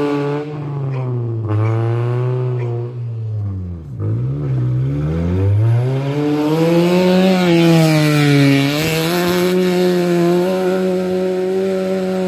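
Rally car engine revving hard on a dirt stage, its pitch climbing and dropping through gear changes, with a short lift about four seconds in. A hiss of tyres on loose dirt joins the engine as the car draws near.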